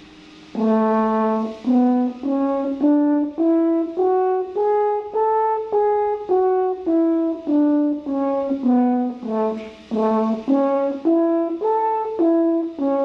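Double French horn playing a one-octave E major scale (four sharps) in separate tongued notes. It opens on a held low note, steps up to a held top note and back down, then climbs again in wider steps, arpeggio-style.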